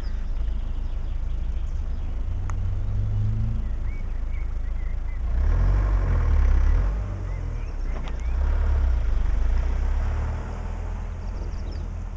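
Rushing floodwater under a steady low rumble of wind on the microphone. The rush swells louder twice, about halfway through and again a couple of seconds later.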